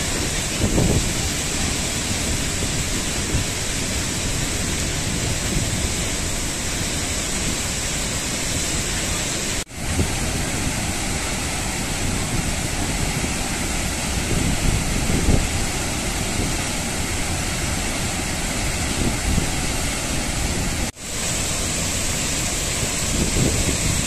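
Steady rush of falling water from Athirappalli Falls, a dense, even roar heard close to the falls. It drops out for a split second twice where the recording is cut.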